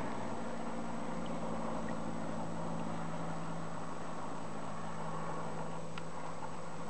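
Aeroplane flying overhead: a steady engine drone with a few low humming tones, holding an even level. A faint short tick about six seconds in.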